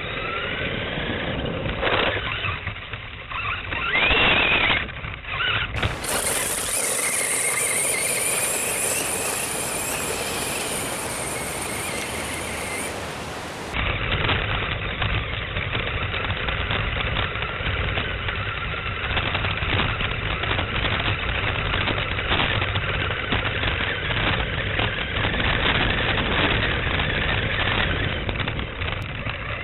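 A WLToys L969 RC truck's electric motor and gears whining, revving up and down, over the rumble of its tyres on pavement and grass. It is picked up by the truck's small onboard camera microphone, which gives it a thin, harsh tone.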